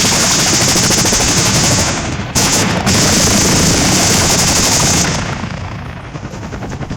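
AI-generated machine-gun fire from the TangoFlux text-to-audio model: a dense, continuous run of rapid shots with a strong hiss over it, which eases off after about five seconds.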